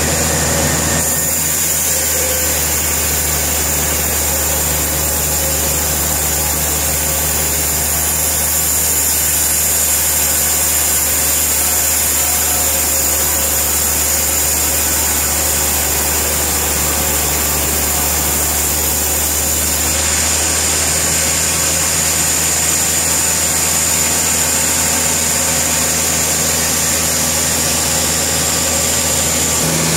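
A sawmill's engine running steadily, with a constant low hum and a high hiss. Its sound shifts slightly about a second in and again about two-thirds of the way through.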